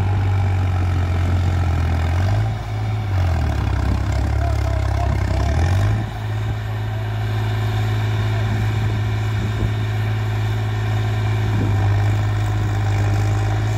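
Diesel tractor engine idling. Its speed sags and picks back up between about two and six seconds in, then it runs steady.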